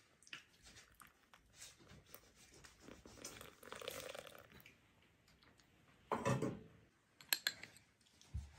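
Faint trickle of melted butter poured into a small ceramic bowl, followed by a dull thump and a few light clinks of a metal spoon against the bowl.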